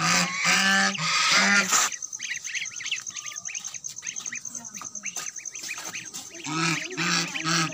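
White domestic duck quacking loudly: a quick run of about four quacks at the start and three more near the end, with ducklings peeping softly in between.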